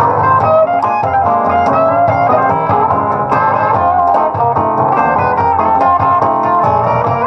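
A live band plays an instrumental passage, with a stage piano playing quick runs of notes to the fore.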